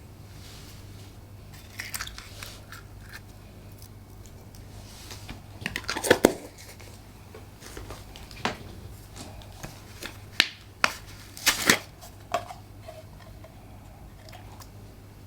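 Slime being squeezed and worked by hand: irregular crackles and squishes, with a few sharp pops about halfway through and a tight cluster of them later on.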